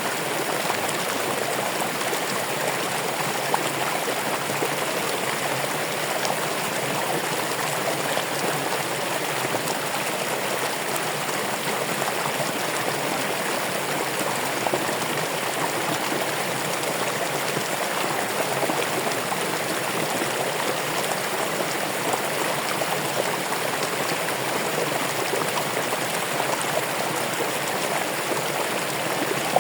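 Running water: a steady babbling of flowing water with small splashes and drips scattered through it.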